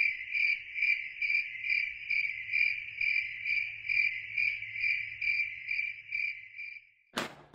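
Cricket chirping in a steady, even rhythm of about two chirps a second, stopping near the end. A single sharp knock-like hit follows just before the end.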